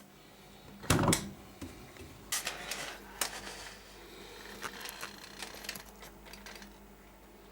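Irregular clicks and knocks of hard objects being handled, with a loud knock about a second in and a burst of clatter a little later, over a faint steady hum.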